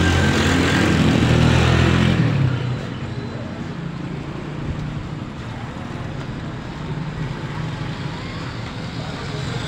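A motorcycle engine passing close by, loud for the first two seconds or so, then fading into steady street traffic noise.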